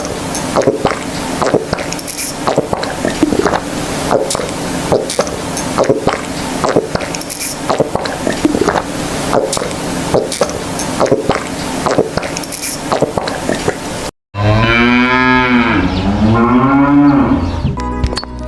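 Cow mooing: near the end, after a brief cut to silence, one loud drawn-out moo rising and falling in pitch in two parts. Before that, a steady noisy background with frequent irregular knocks and clicks.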